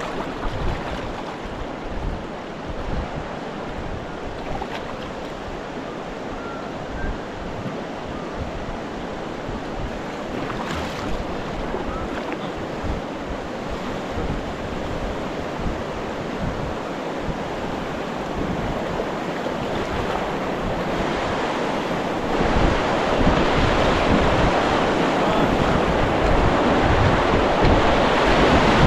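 Fast river water rushing through rapids around a kayak, with wind buffeting the camera microphone. The water grows louder near the end as the kayak runs into rougher whitewater.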